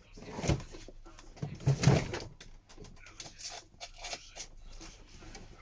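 Repair work on a phone: a plastic pry tool and the phone being handled on the work mat. There are two louder knocks about half a second and two seconds in, then small scrapes and clicks.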